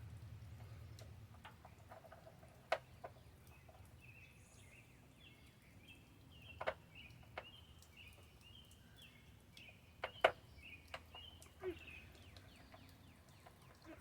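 Faint outdoor ambience: a bird singing a run of short, high chirping notes through the middle, over a low steady hum, with a few scattered sharp clicks and taps.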